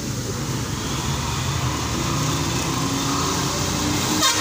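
Bus engine running steadily with road noise, heard from inside the moving bus. Right at the end, two short, loud, shrill sounds cut in close together.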